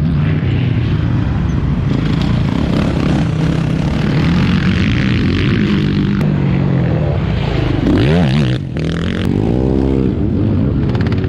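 Off-road motorcycle engines of motocross sidecar outfits and quads racing on a dirt track, revving up and down through the gears. About eight seconds in, one engine revs sharply up and down, then another swells and falls away as a sidecar outfit passes close.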